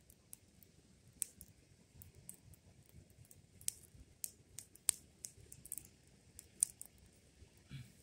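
A fire crackling, with irregular sharp pops and snaps scattered over a low, quiet background.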